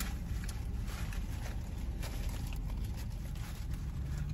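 Steady low rumble inside a parked car's cabin, with faint rustling and handling sounds as things are moved about beside the seat.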